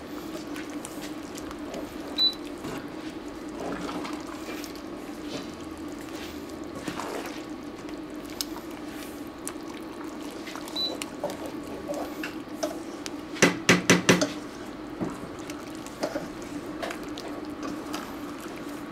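A wooden spatula stirring thick, creamy stroganoff sauce in a cast-iron Dutch oven: soft wet squelching and scraping against the pot, with a short run of louder knocks about two-thirds of the way through. A low steady hum sits underneath.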